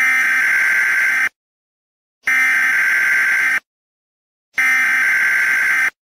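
Emergency Alert System SAME header: three bursts of harsh digital data tones, each about 1.3 seconds long with about a second of silence between them. This is the encoded header that opens an EAS broadcast alert.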